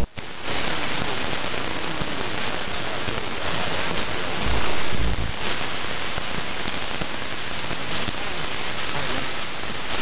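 Steady static hiss from a CB radio receiver on the 27 MHz band with no station talking. It swells louder for about a second near the middle.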